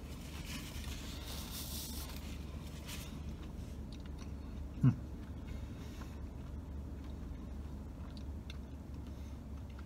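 A man chewing a mouthful of a hot Italian grinder sandwich on toasted bread, with soft crunching in the first few seconds and small mouth clicks, over a steady low hum. A brief loud low sound stands out about five seconds in.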